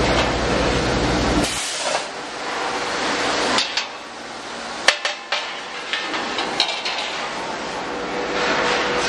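Metal clanks and knocks as a steel gas cylinder body is seated and lined up in a welding machine's fixture, over workshop noise. A low machine hum cuts off about a second and a half in.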